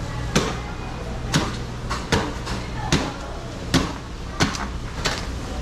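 A heavy cleaver-like knife hacking into a giant bluefin tuna behind the head to cut the head off, seven sharp chops at an even pace of roughly one every 0.8 seconds.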